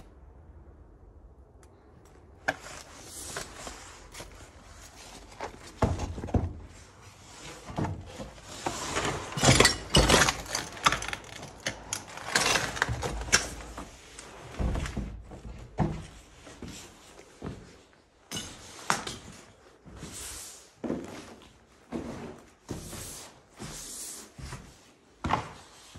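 Footsteps crunching and scuffing over rubble and broken debris on a floor, with irregular knocks and scrapes.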